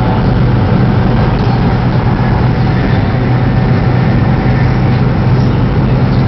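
Steady in-cabin running noise of a Chinese CRH high-speed train at speed: a constant low hum under an even rush of rolling and air noise.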